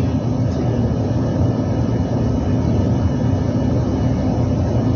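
Overhauled reciprocating compressor running steadily under its test run: a loud, even low drone with no change in speed.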